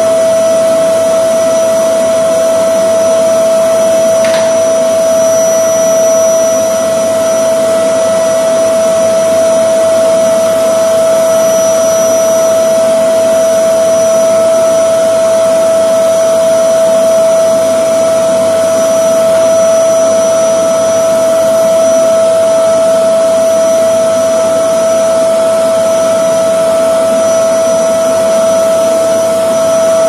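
LG canister vacuum cleaner running steadily with a constant high whine over its rushing airflow while its floor brush is pushed over a tiled floor.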